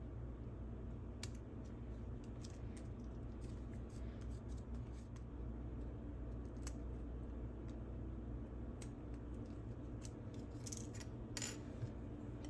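Ballpoint pen scratching as a small paper tag is written on, with scattered light clicks and taps of small craft items on a stone countertop, the sharpest near the end, over a steady low hum.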